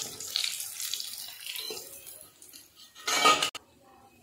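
Besan-coated egg chops deep-frying in hot oil in a steel kadhai, sizzling, while a metal slotted spatula clinks and scrapes against the pan as they are lifted out. About three seconds in comes a short, louder burst, and then the sound cuts off abruptly.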